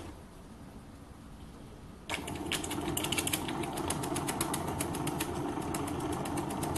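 Live-steam oscillating (wobbler) model steam engine starting up suddenly about two seconds in. It then runs at speed with a rapid, even clatter of exhaust chuffs and ticks over a steady hum.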